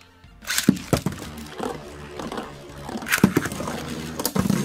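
Two metal-wheel Beyblade spinning tops, Storm Pegasus and Lightning L-Drago, launched into a plastic stadium. Sharp clacks come as they land about half a second in, then they spin and scrape on the plastic floor, with loud clashes about three seconds in and again near the end.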